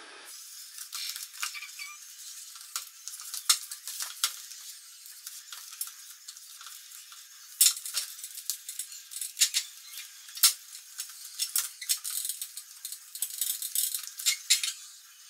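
A cloth being rubbed over a GLX motorcycle helmet's hard shell and visor mechanism to clean it: a thin, dry, scratchy rubbing with many sharp clicks and crinkles.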